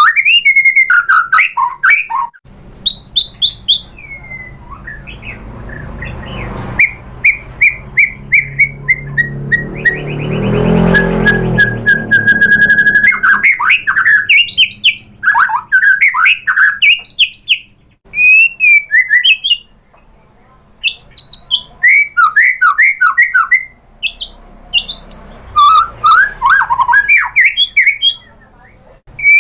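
Male white-rumped shama (murai batu) in full song: a long, varied run of loud whistled phrases, sliding notes and rapid trills, with a buzzy, rattling stretch about a third of the way through and a few short pauses.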